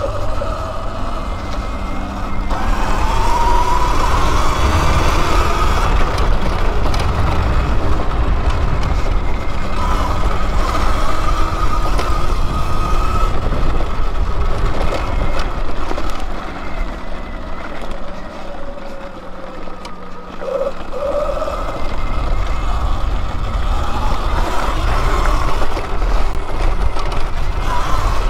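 Electric dirt bike motor whining while riding, its pitch rising and falling with the throttle, under heavy wind buffeting on the helmet-mounted microphone. It eases off for a few seconds about two-thirds of the way through, then picks up again.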